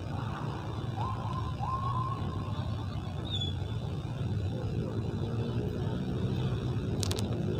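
Jammed city traffic of cars and motorbikes: a steady low engine rumble, with two short rising tones about a second in and a brief click near the end.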